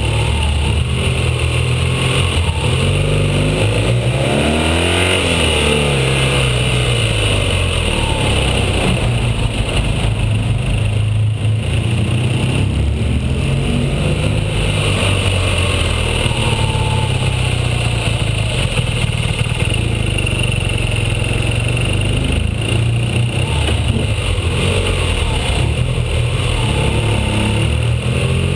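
BMW R1200GS flat-twin boxer engine running under load on a climb, with steady wind and road hiss; the engine note swells up and falls back about four to six seconds in.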